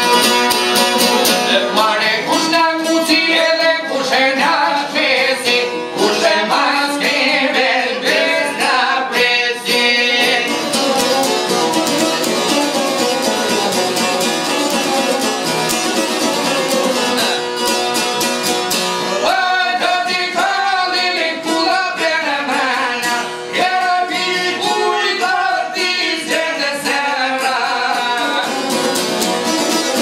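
Albanian folk music: a violin and long-necked plucked lutes playing a tune together, the lutes picked and strummed in quick notes.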